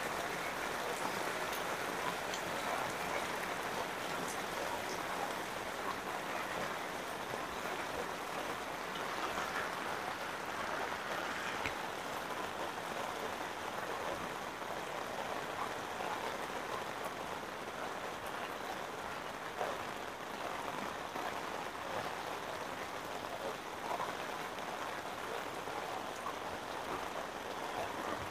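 Heavy rain falling steadily: an even hiss of rain on the ground and surrounding surfaces, with scattered faint drop taps.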